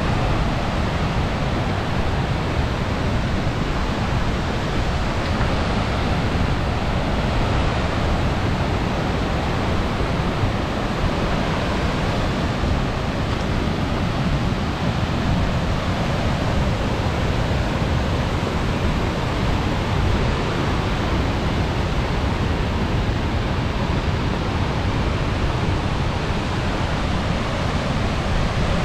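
Glacier-fed waterfall's rushing water: a steady, unbroken wash of noise.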